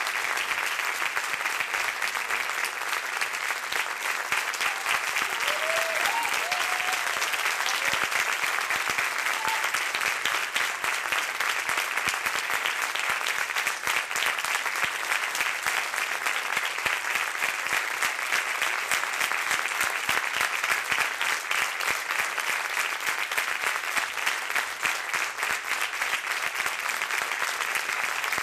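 Large theatre audience applauding steadily, a dense continuous clapping at a curtain call.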